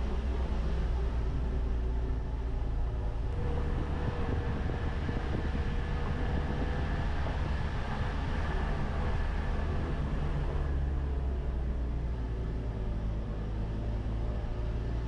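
Mitsubishi L300 Delica 4WD van's engine running steadily as the van crawls along a rough grassy track, a low drone whose note shifts about three and a half seconds in and again near eleven seconds.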